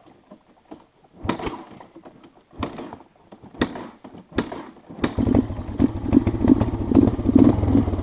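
A few sharp knocks and clatters, then, about five seconds in, a vehicle engine starts running, low and steady with a fast, even pulse.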